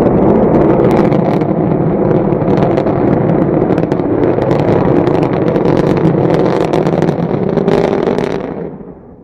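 Rocket engine exhaust noise: a loud, steady rumble with crackle, fading away near the end.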